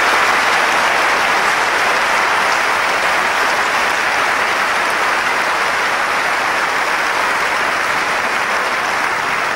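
Tennis crowd applauding steadily after a game is won, the clapping slowly easing off toward the end.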